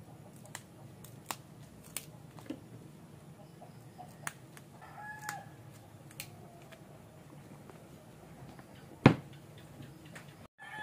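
Sharp snaps of fresh string beans being broken by hand, a handful spread out, the loudest about nine seconds in. A chicken calls once, briefly, around the middle.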